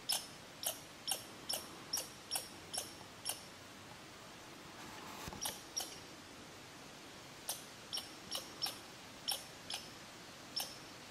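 Red squirrel giving repeated sharp chip calls, about two to three a second, in two runs with a pause around the middle.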